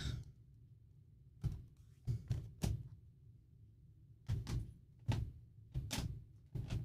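A string of irregular knocks and thunks, about nine in all, as craft supplies are moved about while reaching for a Cherry Cobbler ink pad.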